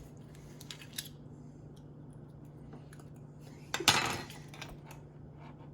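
A metal spoon clicking and scraping against scallop shells as the meat is pried out, with one louder scrape about four seconds in, over a steady low hum.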